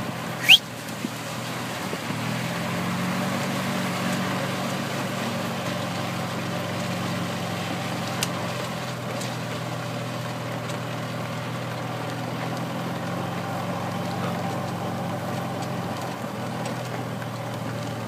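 Golf cart running steadily as it drives along, its motor giving an even low hum over the rumble of travel. A brief, sharp, rising squeal comes about half a second in.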